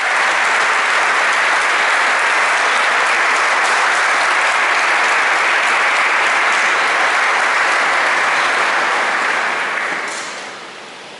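Congregation applauding in a large church, steady and sustained, then dying away near the end.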